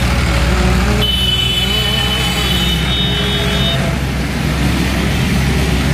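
Steady, loud low mechanical drone of a running motor or engine, with a thin high whine from about one second in to nearly four seconds.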